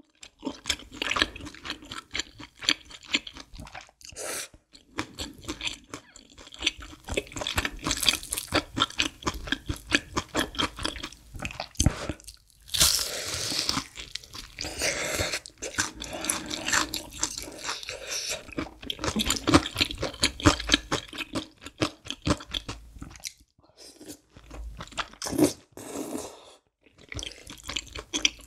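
Close-miked crunching and chewing of a deep-fried breaded cheese pork cutlet (cheese tonkatsu), with many quick crisp crunches of the fried crust. Near the end comes a mouthful of creamy udon noodles.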